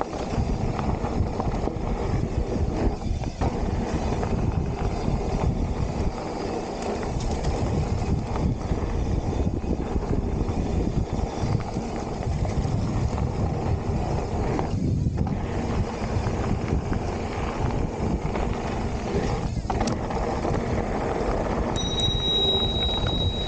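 Wind rushing over the microphone and the rumble and rattle of a Specialized Stumpjumper mountain bike rolling fast over a dirt trail on 2.8-inch plus tyres. Near the end a high, steady squeal comes in, the sound of the disc brakes being applied.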